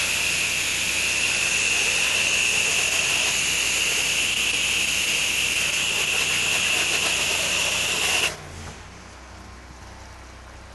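Pressure washer wand spraying water: a steady, loud hiss with a high whistle in it, which stops abruptly about eight seconds in, leaving a faint low hum.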